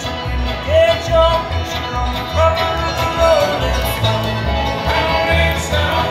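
Live bluegrass band playing a song: a lead voice singing over fiddle, mandolin, acoustic guitar and banjo, with upright bass walking a steady low line about twice a second.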